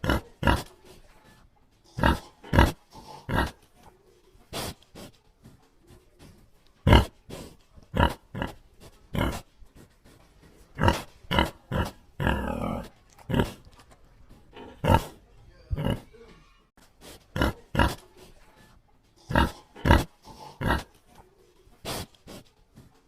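Pig grunting in short, separate grunts at an irregular pace, often two or three close together. About halfway through comes one longer, rougher grunt lasting about a second.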